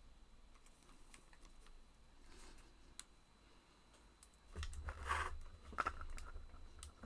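Faint clicks and rustles of cardstock ephemera pieces and their packaging being handled. A louder rustle with a low rumble comes about four and a half seconds in.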